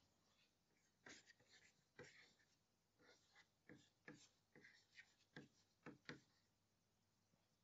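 Faint taps and scratches of chalk writing on a blackboard: a quick string of short strokes that stops about six seconds in.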